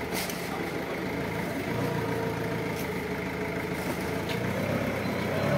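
Linde counterbalance forklift engine running steadily at idle, a low even hum, with a few faint clicks.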